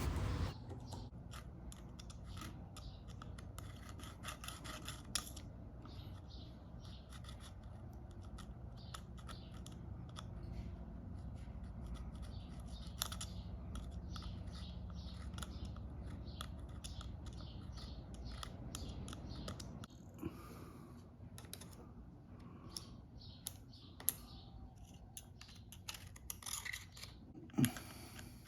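Faint, irregular scratching and small clicks of the old adhesive strip being scraped and picked off the edge of an iPhone's frame.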